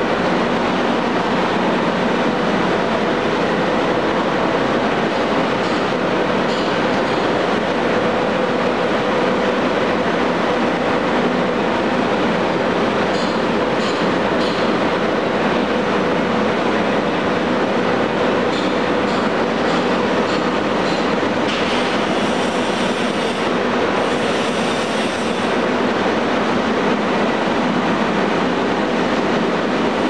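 Carrier 5H-120 twelve-cylinder open-drive reciprocating refrigeration compressor running in a ship's machinery space: loud, steady mechanical noise with a steady hum, and a few faint ticks now and then.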